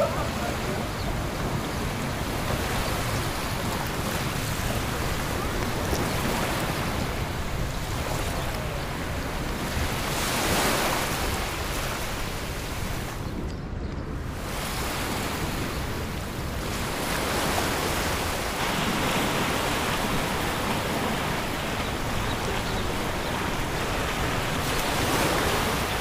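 Sea waves washing onto a beach, the surf swelling and fading every several seconds, with a steady low rumble of wind on the microphone.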